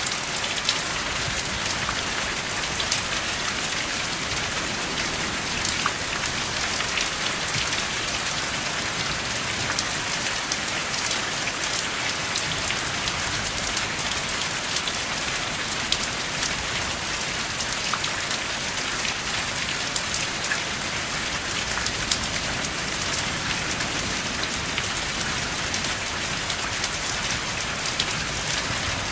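Steady rainfall with no thunder, a constant hiss flecked with the sharp ticks of individual drops striking a surface.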